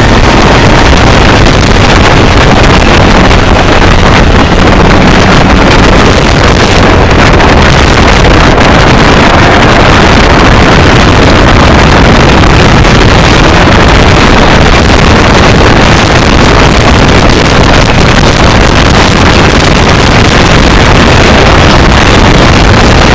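A car being driven at speed on a circuit, heard from inside the cabin: engine, tyre and wind noise recorded so loud that it stays pinned at full level and overloads the microphone throughout.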